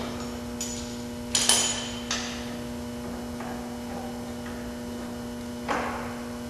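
Hand tools working the Torx bolts on a Jeep Wrangler's factory steel front bumper: a handful of scattered metal clinks and knocks, the loudest about a second and a half in, over a steady electrical hum.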